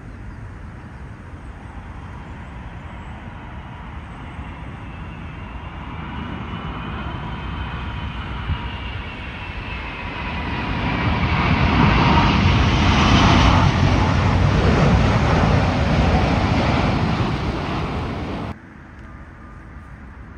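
Airbus A380 jet engines on a low landing approach: a rumble that builds as the airliner nears, with a high engine whine that glides down in pitch. It is loudest a little past halfway, then cuts off abruptly near the end, leaving a fainter, distant jet noise.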